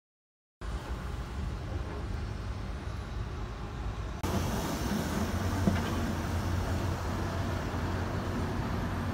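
Steady low rumble of street traffic, starting about half a second in and getting louder about four seconds in.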